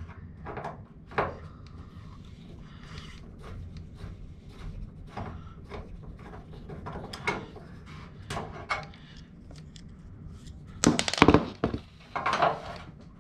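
Screwdriver working Phillips screws out of a washing machine's sheet-metal and plastic front: scattered small clicks and scrapes, with a louder cluster of sharp knocks and clatter about eleven seconds in.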